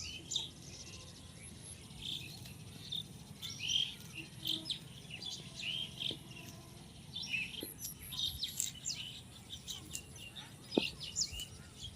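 Several small birds chirping, with many short, high calls overlapping from moment to moment over a faint steady background hiss.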